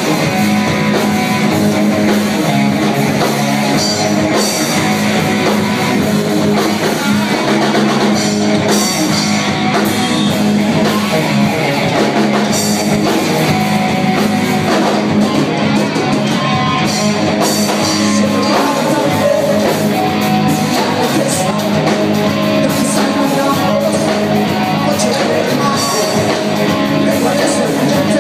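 A live rock band playing: electric guitars, bass guitar and a drum kit, loud and without a break.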